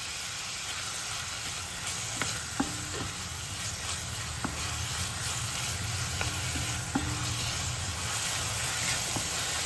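Chopped onion and green chillies sizzling in hot oil in a stainless steel pan as they begin to sauté, stirred with a spatula that scrapes along the pan. A few light knocks of the spatula against the pan, some with a short ring.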